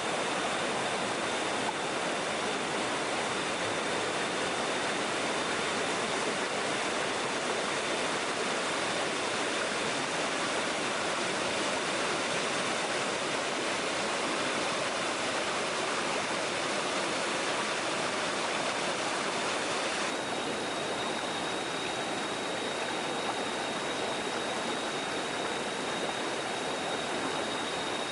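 Steady rush of a forest stream or waterfall, with a thin high steady whine above it. The water sound shifts slightly about twenty seconds in, as at a cut.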